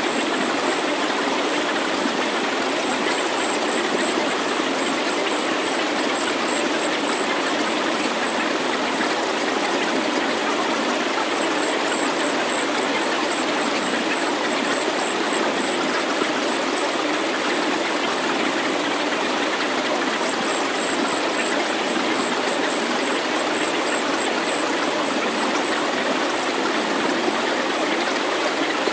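Steady rushing noise, even in level and without a beat, from a synthesized sound-healing track, with a faint thin high tone that pulses quickly in stretches above it.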